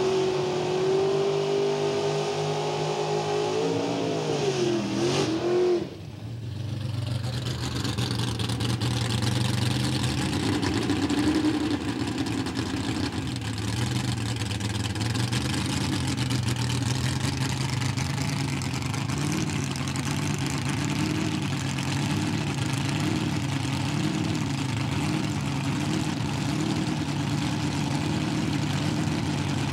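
A drag car's engine running at steady high revs on its run, its note wavering and dropping about five seconds in. After a cut, a Hemi-powered Plymouth Barracuda Super Stock car's V8 idling at the starting line, its pitch rising and falling unevenly.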